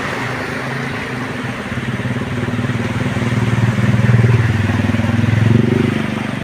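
A vehicle engine running steadily as it drives slowly along a flooded road, a low drone that grows a little louder about four seconds in.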